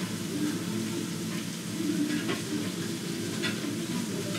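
Restaurant ambience: a steady sizzling hiss of food frying, with low background music and a few light clicks of tableware.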